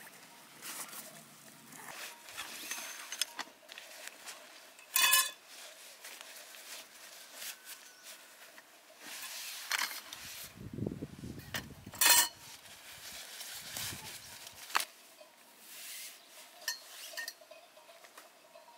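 Handling noise of camping gear being unpacked: nylon bags rustling and folded metal tent poles clinking, with two sharper ringing metallic clinks, one about five seconds in and one about twelve seconds in.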